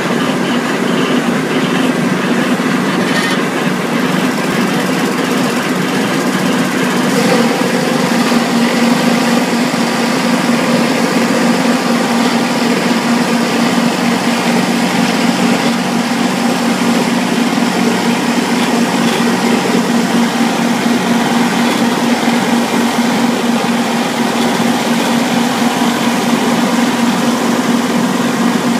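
Compact tractor engine running steadily under load, driving a Koro FieldTopMaker fraise mower whose rotor strips off the grass surface and whose conveyor elevates the cuttings and thatch into a trailer. The result is a loud, unbroken mechanical drone.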